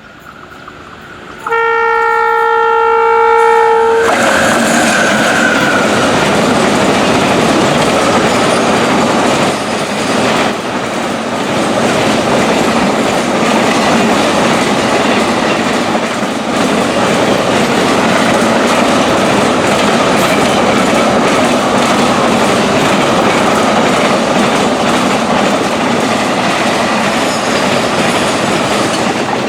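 A WAG7 electric freight locomotive sounds one hoarse 'sore throat' horn blast lasting about two and a half seconds. The container freight train then rushes past with a steady rolling rumble and wheel clatter over rail joints.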